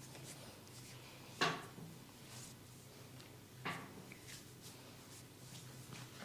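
Hands massaging a person: faint rubbing on skin, with two sharp snaps, the first about a second and a half in and louder, the second shorter and quieter a little before four seconds.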